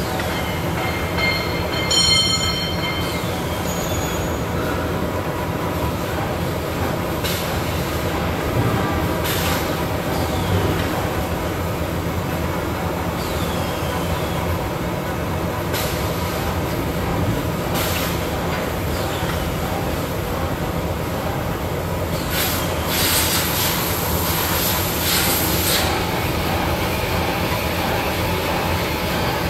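Automatic kitchen towel paper converting line running: a steady mechanical din with a few constant tones. A brief high squeal comes about two seconds in, and short high hisses come every few seconds, with a longer hiss near the end.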